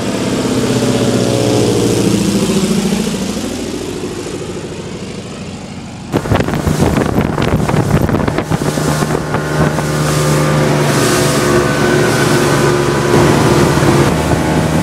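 Single-engine propeller floatplane passing overhead, its engine drone falling in pitch and fading. About six seconds in this cuts to a motorboat under way, its engine running steadily under wind noise on the microphone.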